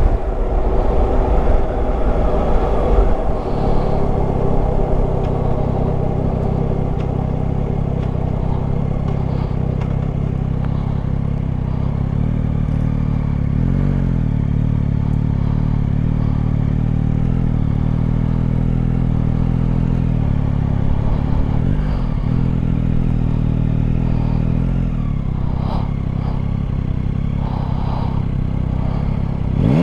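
Yamaha Tracer 9 GT's three-cylinder engine. For the first few seconds it runs at road speed with wind rushing past. It then drops to low revs and runs steadily, with small rises and falls, as the bike rolls slowly and idles.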